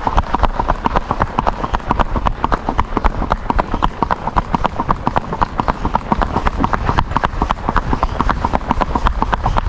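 A horse's hooves striking asphalt in a quick, even clip-clop as it moves along at a steady gait.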